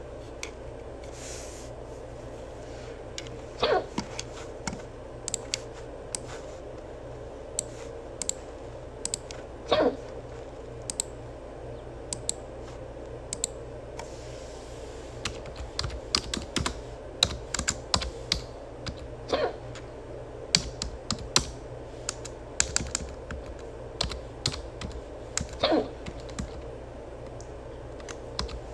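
A person hiccuping four times, about every six seconds, each hiccup a short voiced jolt. Between them come rapid clicking taps like typing on a keyboard.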